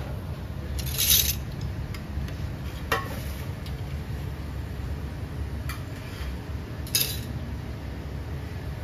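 Dishes and utensils clinking and scraping: four short, sharp sounds, the loudest about a second in, over a steady low hum.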